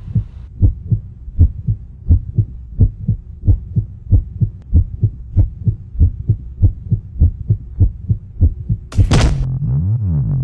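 Heartbeat sound effect: low thumps, about three a second. About nine seconds in, a loud noise burst cuts in, and electronic music with a wobbling synth bass starts.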